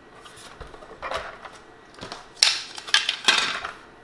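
Clicks and clacks of a small mixer's aluminium case and plastic side panels being handled and taken apart, with the sharpest knock about two and a half seconds in and a few more soon after.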